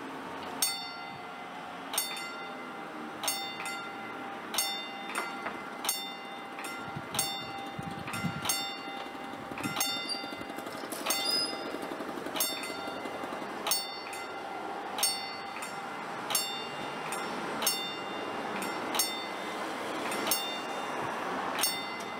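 A level-crossing warning bell strikes about once every 1.3 seconds, each ringing stroke dying away before the next, over a steady background noise. It is the warning that the crossing is closing for an approaching train.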